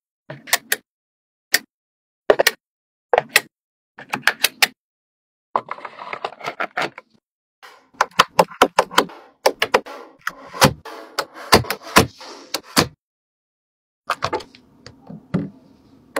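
Small magnetic balls clicking and clacking as rows and blocks of them are snapped onto a magnet-ball model: sharp clicks in quick clusters, with denser clicking and rattling in the middle, between short dead-silent gaps.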